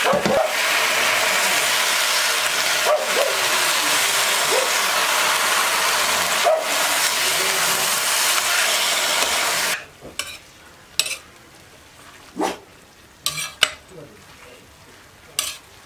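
Mustard greens sizzling in a hot frying pan. The sizzle cuts off suddenly about ten seconds in, followed by a few separate scrapes and knocks of a spatula stirring in the pan.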